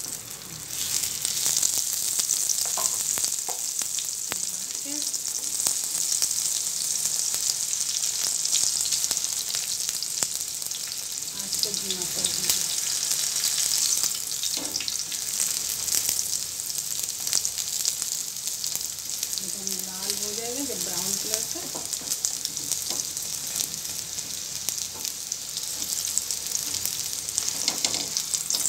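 Ghee sizzling steadily under an onion paratha on a hot tawa; the sizzle starts suddenly as the paratha is turned over onto the ghee. Now and then a wooden spatula clicks and scrapes on the griddle.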